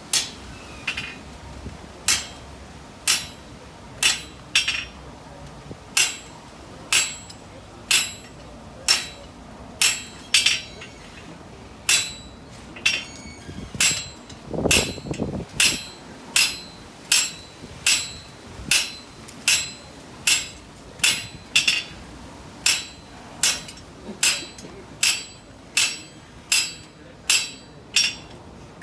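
Blacksmith's hand hammer striking hot steel on an anvil, steady blows about once a second with a few quick doubled strikes, each with a short metallic ring, while the V shape of a bottom swage is forged in over the hardy hole. A brief low rumble sounds about halfway through.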